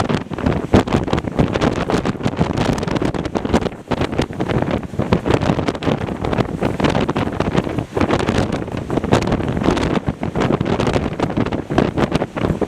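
Gale-force wind buffeting the microphone in loud, irregular gusts.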